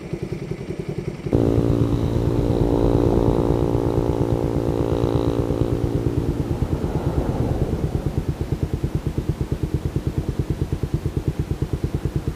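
Motorcycle engine idling close by with a fast, even beat. A louder engine note comes in suddenly about a second in and fades away around seven seconds in as another vehicle goes by.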